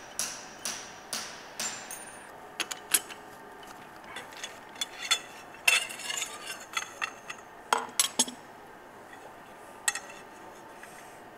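Metal clinks and knocks as a lathe chuck is loosened with its chuck key and a stainless steel tube is freed from the jaws. A few evenly spaced clicks come in the first two seconds.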